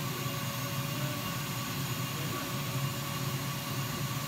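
A 30 W air-cooled CO2 laser cutter running as it cuts through a plexiglass sheet: a steady whir and hiss with a low hum underneath.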